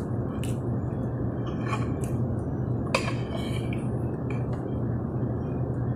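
Metal knife and fork clinking and scraping on a plate, several separate clinks with the loudest about three seconds in, over a steady low restaurant hum.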